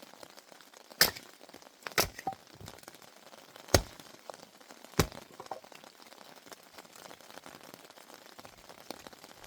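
Dry wood cracking sharply as kindling is broken up for a campfire: four loud cracks about a second apart in the first five seconds, with a few smaller snaps between them.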